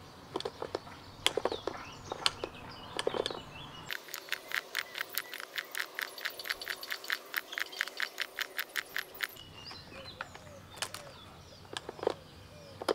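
Plastic trimmer-head spool turned by hand while winding nylon line onto it: scattered clicks, then from about four seconds in an even run of ratchet clicks, about four or five a second, lasting about five seconds.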